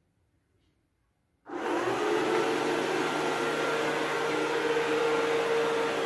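Multilaser HO041 robot vacuum switching on about a second and a half in, after near silence. Its suction motor then runs steadily with a constant hum.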